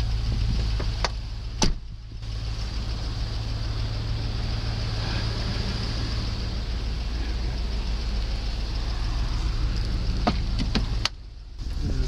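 Range Rover P38's engine idling steadily, heard from outside the car. A sharp knock sounds about a second and a half in, and a few lighter clicks come near the end.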